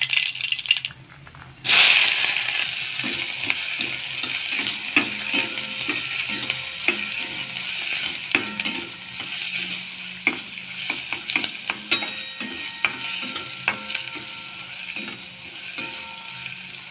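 Chopped onion frying in hot oil with mustard seeds in a steel kadhai: the sizzling jumps loud about two seconds in, then runs on steadily while the onion is stirred, with frequent sharp clicks of the stirrer knocking against the steel pan.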